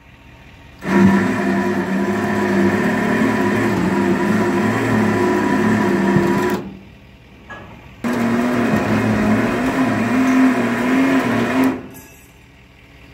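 Winch motor running under heavy load as it drags a wooden shed up onto a flatbed trailer, in two pulls of about six and four seconds with a short pause between; its hum wavers with the strain.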